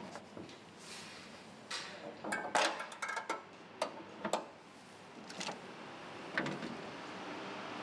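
A run of clicks and knocks as a key works the boot lock of a 1953 Morris Minor and the boot lid is opened, the clicks thickest about two to three seconds in, followed by scattered rattles as a charging cable is lifted out of the boot.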